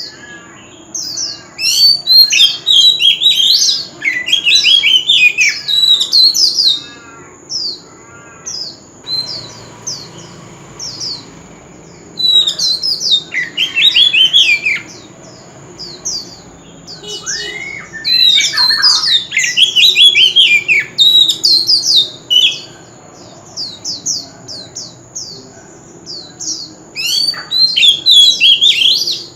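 Male oriental magpie-robin singing in bursts of loud, varied phrases of quick whistled and chirping notes, with pauses of a few seconds between the bursts.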